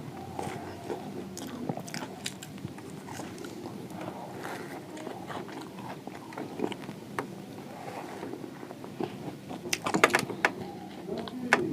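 A person biting into and chewing crispy fried samosa close to the microphone: irregular crunches and chewing, with the loudest burst of crunching about ten seconds in.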